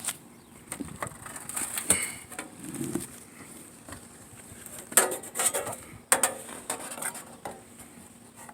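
Scattered knocks and scrapes of metal pipe flashing being handled and pressed into place on a shingle roof. There are sharp knocks about one, two, five and six seconds in, with scraping between them.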